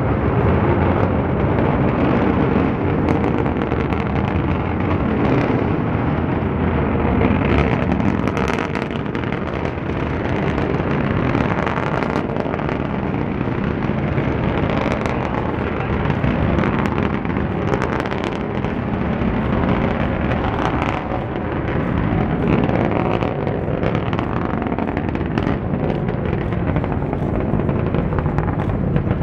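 Long March 8 rocket's kerosene-fuelled first-stage engines and two side boosters heard during ascent: a steady low rumble with a crackling edge.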